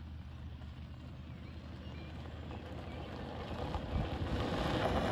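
Golf cart driving over a gravel drive toward the listener: a low steady motor hum with tyre noise on gravel, growing steadily louder as it approaches.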